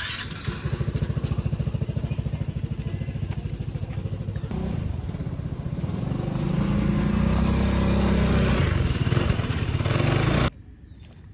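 A small engine running with a fast, even pulsing, then picking up to a higher, steadier note about four and a half seconds in, and cutting off abruptly near the end.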